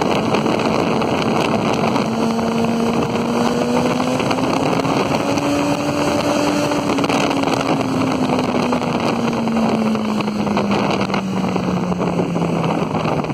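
Wind buffeting the microphone and running noise from a moving vehicle, with an engine hum that rises slowly in pitch for the first half and then falls.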